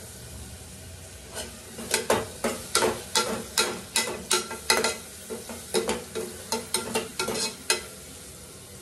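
A ladle stirring onions and ginger-garlic paste frying in oil in a pressure cooker. It scrapes and knocks against the pot about two or three times a second over a steady sizzle, and the knocks stop near the end, leaving only the sizzle.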